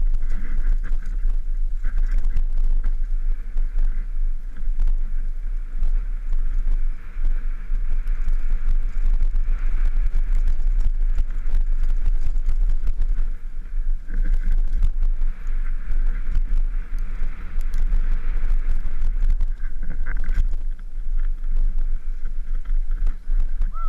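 Wind buffeting a GoPro's microphone during a fast downhill mountain-bike run, with the rattle and knocks of the bike and its tyres on a rough dirt trail.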